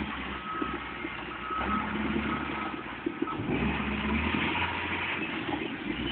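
Front-end loader's engine running, swelling louder twice as it works, with its backup alarm beeping for the first couple of seconds.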